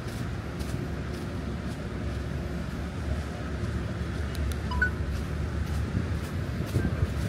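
Busy street ambience: a steady low rumble of traffic with wind on the microphone, and the walker's footsteps ticking faintly about twice a second.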